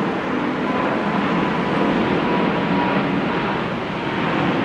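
Airbus A380's jet engines at takeoff thrust during climb-out: a loud, steady rushing noise with a faint steady whine.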